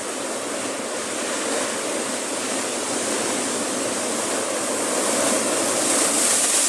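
Ocean surf breaking and washing over a rock shelf: a steady rushing hiss of white water that grows louder toward the end as a big wave crashes against the rocks.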